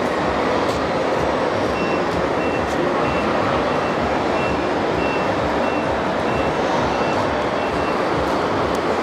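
RC model truck's reversing beeper sounding a short high beep about twice a second for several seconds, over steady, loud vehicle-like noise.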